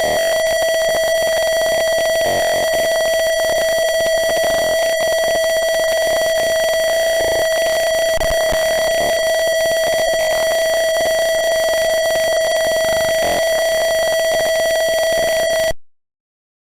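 A simulated piezo buzzer in TinkerCAD Circuits sounding one steady, unbroken buzzing tone that cuts off suddenly near the end. It is the fire alarm going off because the simulated temperature has reached the trigger point.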